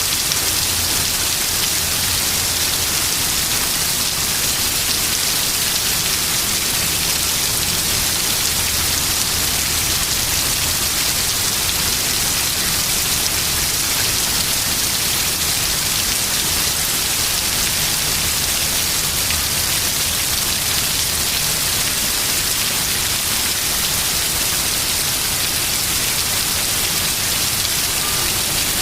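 Heavy rain pouring down in a thunderstorm downpour, a steady, even hiss of rain with no hail falling.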